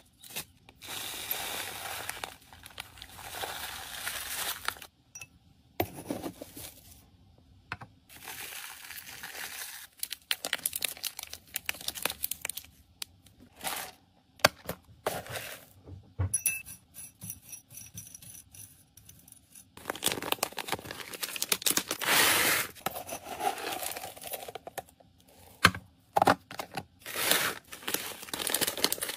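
Clear plastic bags crinkling and rustling as they are handled and opened, with dry seed-and-grain mix scooped and poured into a bag, in irregular bursts broken by a few short pauses.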